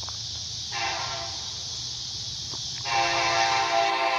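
Air horn of an approaching Kansas City Southern SD70MAC locomotive, heard from a distance: one long blast beginning just under a second in, then a second, louder long blast from about three seconds in. A steady high hiss runs underneath.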